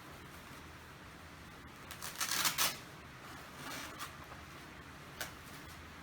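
Handling of a blood-pressure cuff on a patient's leg: a short rasping rustle about two seconds in, softer rustles a second later, and a small click near the end.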